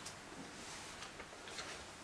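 Quiet room with a few faint, short rustles: the pages of a book being leafed through.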